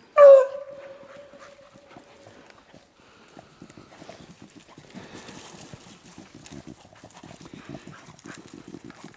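A beagle gives one loud bay just after the start, dropping in pitch and then held for about two seconds: a hound giving voice on a rabbit's scent. After it comes a soft, rapid patter of paws and steps through wet leaves.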